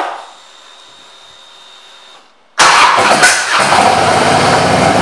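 A click, then a faint steady hum. About halfway through, the 2001 Harley-Davidson Softail Deuce's Twin Cam 88B V-twin starts abruptly and settles into a loud idle through its Vance & Hines exhaust.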